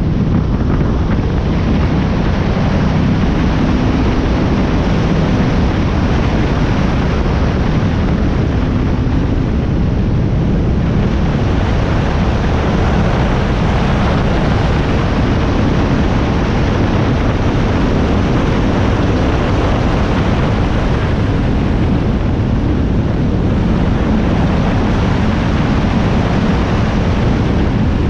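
Powerboat running flat out on open water: a loud, steady rush of engine noise, water and wind on the microphone, with a faint engine hum showing through in the first few seconds.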